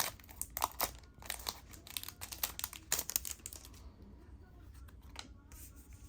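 Foil wrapper of a Pokémon trading-card booster pack crinkling as the cards are drawn out of it. The crackling is dense at first, then thins to a few faint ticks.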